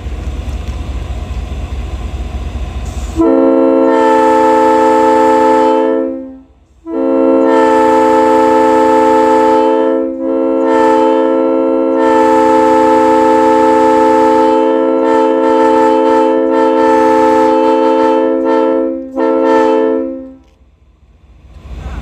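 A low steady rumble, then a multi-chime locomotive air horn blown about three seconds in. It sounds a steady chord of several notes in two blasts: a short one of about three seconds, then after a brief gap a long one of about thirteen seconds with momentary dips, cutting off sharply near the end.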